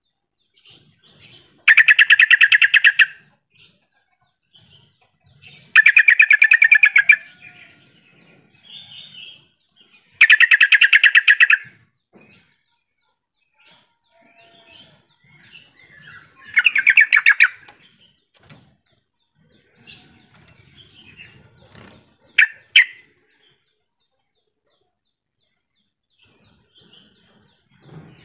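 Yellow-vented bulbul (trucukan) singing: four loud phrases, each a quick run of notes about a second and a half long, a few seconds apart, then two short sharp notes after the middle.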